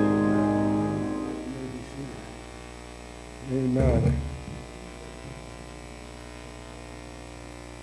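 The hymn's closing piano chord dies away over the first second or so, leaving a steady electrical mains hum from the sound system. About halfway through, a person's voice is heard briefly.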